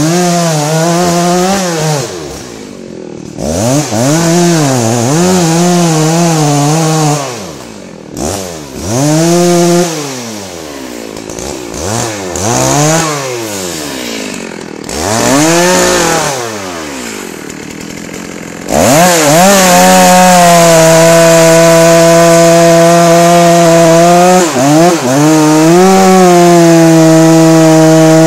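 Dolmar 7900 two-stroke chainsaw revved up and down repeatedly, then held at full throttle about two-thirds of the way through as it cuts into a hard beech trunk, steady apart from one brief dip under load.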